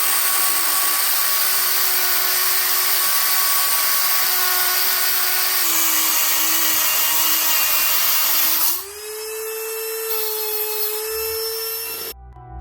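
A small electric motor whining at a steady high pitch over a loud hiss. About halfway through the pitch drops slightly, and about two-thirds in the hiss falls away while the whine rises and holds. It then cuts off suddenly.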